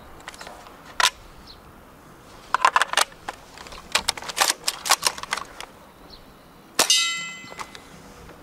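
Snow Wolf SV-98 bolt-action airsoft sniper rifle during shooting. There is a single sharp snap about a second in, then two runs of quick metallic clicks as the bolt is worked, and near the end a loud metallic clang that rings out for about a second.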